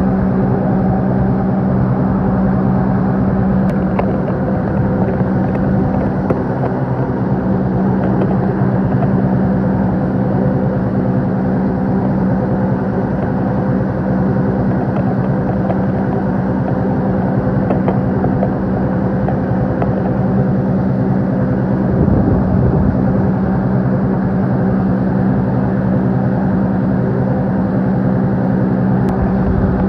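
A motorboat's engine running steadily at an even pitch, with a rushing noise beneath it.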